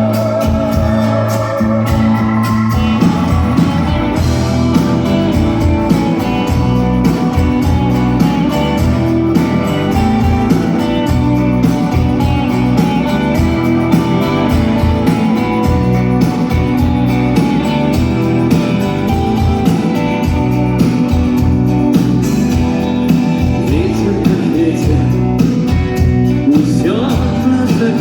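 Rock band playing live in concert: a steady drum beat under sustained guitar and keyboard tones.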